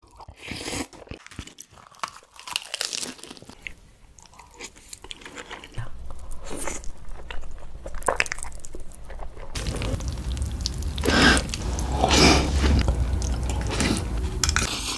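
Close-miked eating sounds of spicy cold noodles: slurping, chewing and crunchy bites. Several short clips are spliced together, so the background changes suddenly twice.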